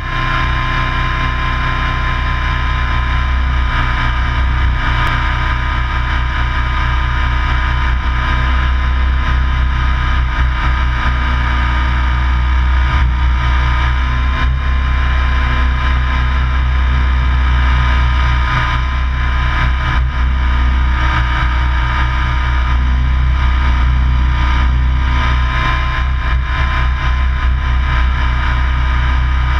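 Radio-controlled helicopter's motor and rotors in flight, heard from its own onboard camera: a steady whine over a low drone.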